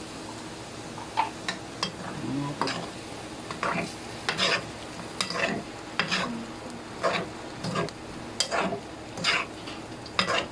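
Utensil scraping and knocking against a frying pan, stirring chicken liver and gizzards in soy sauce and water in irregular strokes, with the pan sizzling underneath.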